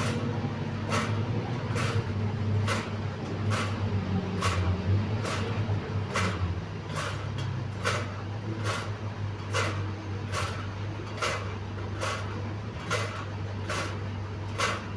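Fan turbine running with a steady low hum and a sharp regular tick a little more than once a second: the strange noise it is making.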